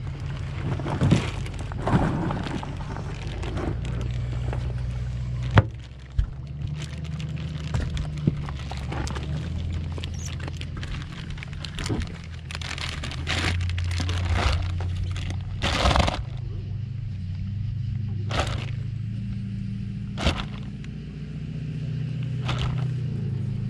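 Plastic fish weigh bag crinkling and rustling as it is handled, with scattered clicks and knocks and a louder rustle about two-thirds of the way through, over a steady low hum.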